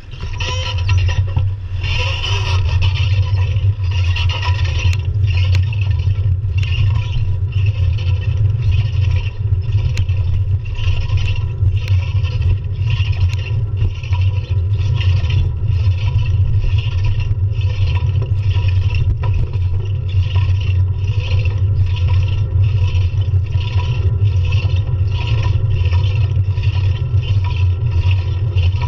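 Wind and road rumble from a bicycle in motion, picked up by a handlebar-mounted action camera, getting louder in the first second as the bike gets going. A rhythmic rasping clatter repeats about one and a half times a second throughout.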